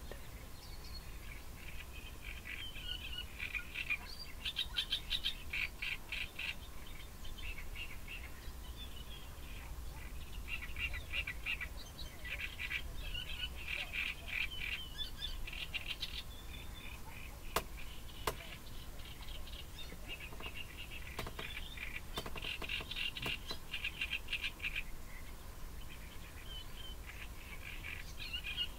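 Wetland birds calling in busy bursts of quick, high chirping notes that come and go, over a low steady rumble; two sharp clicks a little past the middle.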